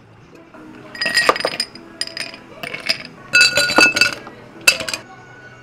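Ice cubes poured from a metal ice scoop into tall drinking glasses, clinking and clattering against the glass in about five bursts.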